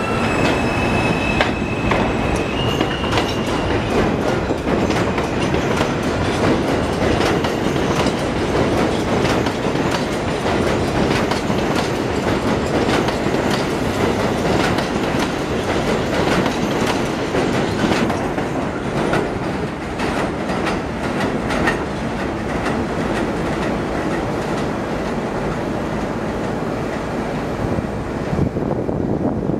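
New York City Subway M train running alongside an elevated platform: a steady rumble of steel wheels on rail with repeated clickety-clack from the rail joints. A high squeal sounds over it in the first few seconds.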